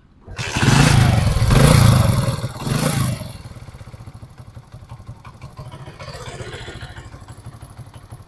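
Motorcycle engine starting and revving for about three seconds, then settling to a steady idle. The timing chain runs without its rattle, the tensioner now fitted with a stiffer brake-rod spring.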